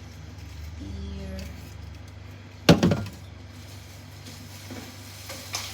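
Groceries being put away in a fridge: one sharp clunk about halfway, with a couple of quick rattles right after it, and a few light knocks near the end, over a steady low hum.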